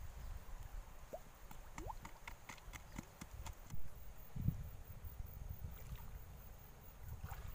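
Outdoor riverside ambience: a steady low rumble of wind and flowing river water, with scattered small clicks and knocks and a couple of brief rising squeaks in the first half, and a low thud just before the middle.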